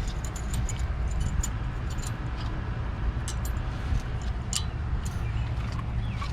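Light metallic clicks and clinks of thin steel brake-pad hardware clips being handled and pressed into the caliper bracket, many small ticks at irregular intervals over a steady low rumble.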